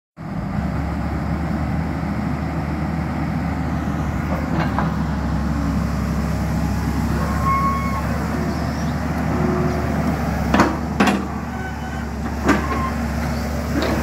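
Tracked hydraulic excavator's diesel engine running steadily as the boom and bucket swing. Three sharp knocks come in the last few seconds.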